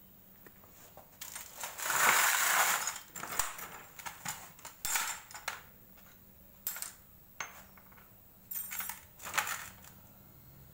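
Rustling and rubbing handling noises as a repair patch is pressed and worked onto the glued inside of a tubeless scooter tyre, in irregular bursts, the longest and loudest about two seconds in.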